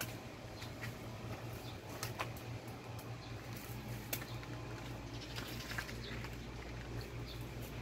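Knife cutting the hands of bananas off a fresh bunch's stalk: scattered crisp snaps and squishy cuts as the fruit is handled, over a steady low hum.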